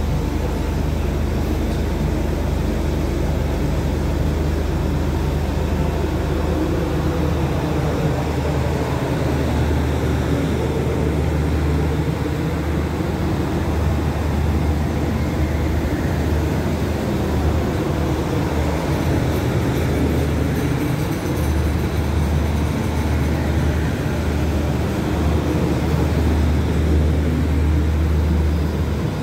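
State Railway of Thailand passenger train rolling slowly past along the platform: a steady rumble of wheels and running gear over a deep, continuous drone.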